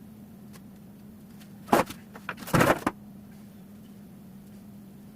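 Two brief noises, a sharp one and then a longer rougher one about a second later, over a steady low hum.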